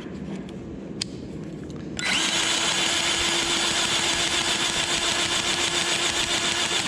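Milwaukee cordless grease gun's electric pump motor starting about two seconds in and running steadily with a quick regular pulsing, pumping grease from a new tube up through its hose. A small click comes about a second in.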